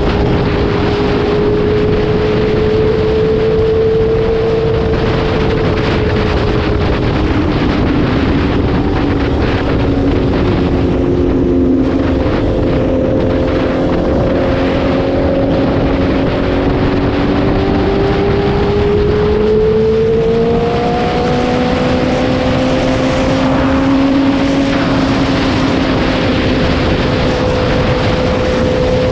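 Motorcycle engine running steadily at highway cruising speed, with wind rushing over the microphone. The engine pitch drifts slowly, rising a little about two-thirds of the way through.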